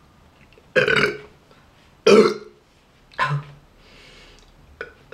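Three loud burps, one after another about a second apart, the second the loudest, brought up by drinking fizzy Schweppes.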